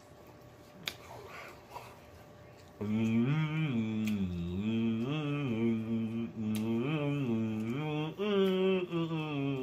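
A man humming a tune in a low voice, the melody rising and falling, starting about three seconds in after two soft clicks.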